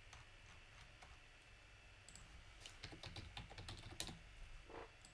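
Faint typing on a computer keyboard: a quick run of key clicks in the second half, over quiet room tone.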